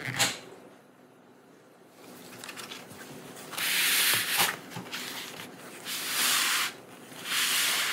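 Thin plastic pry tool scraping along the seam of a laptop's bottom cover to release its clips: a short click near the start, then three longer scraping strokes in the second half.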